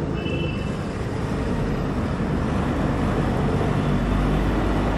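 A motorbike's engine running as it rides closer, growing steadily louder, with its low rumble strongest near the end.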